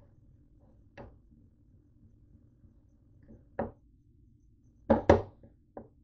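A plastic serving spoon knocking against the side of a bowl while stirring a cookie, mini-donut and whipped-cream mix: a few sharp knocks spread out, the loudest a quick pair about five seconds in, over a faint low hum.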